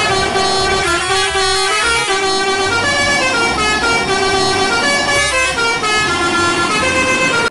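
Truck's multi-tone air horn playing a tune, its notes stepping up and down in one unbroken run that cuts off sharply at the end.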